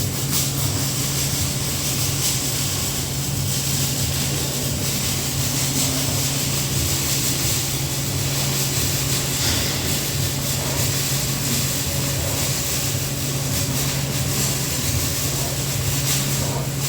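TIG welding arc on a steel pipe-to-flange joint: a steady hiss with light crackle over the constant hum of the welding machine, running without a break.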